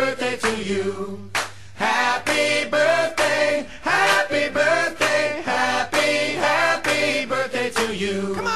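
Vocal music: several voices singing a cheerful children's birthday song, with no clear lyrics.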